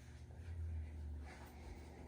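Quiet room tone with a faint, steady low hum that swells slightly in the middle.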